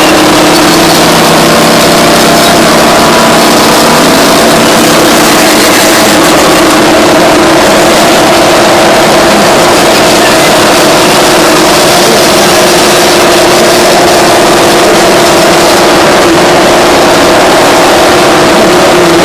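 Twin Detroit Diesel 6-71N two-stroke engines of a Terex 82-80 bulldozer running loud and steady, with a slight change in the lower engine note about four seconds in.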